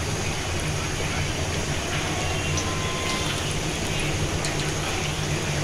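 Piyaju (lentil-and-onion fritters) sizzling steadily in hot oil as they deep-fry, with a few small crackles. A low steady hum runs underneath.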